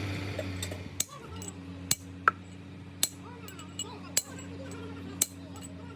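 Sharp metal clinks or taps, about one a second and unevenly spaced, over a steady low machine hum, as metal parts are handled or struck during gearbox repair work.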